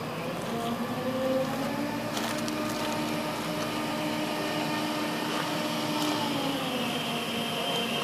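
Crane engine revving up about half a second in, holding at the higher speed for several seconds, then dropping back toward idle near the end.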